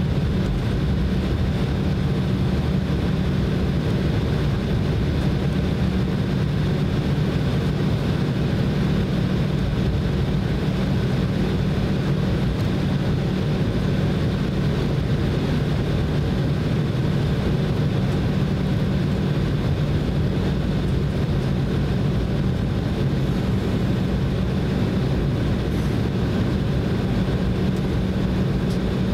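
Cabin noise inside an Embraer E190 airliner taxiing: its General Electric CF34-10E turbofan engines running at taxi power, a steady hum with a low drone and a fainter high whine.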